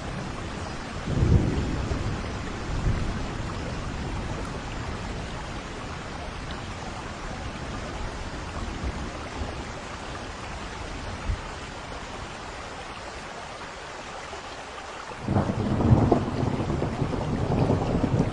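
Steady rain falling during a thunderstorm, with thunder rumbling: a short rumble about a second in, then a louder, longer roll of thunder starting near the end.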